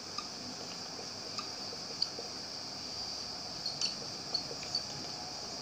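Marker pen writing on a whiteboard: faint, scattered squeaks and taps of the felt tip over a steady background hiss.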